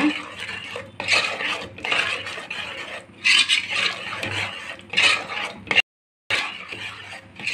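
Metal spatula scraping and stirring a thick onion-tomato masala paste against the sides and bottom of a metal pot in repeated strokes, as the spices are sautéed in. The sound cuts out briefly about six seconds in.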